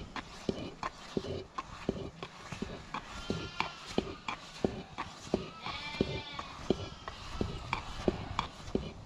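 A flat stick stirring and knocking through thick flour porridge in a black iron pot over a wood fire, an irregular run of dull knocks and scrapes. About six seconds in, livestock bleat once, for about a second.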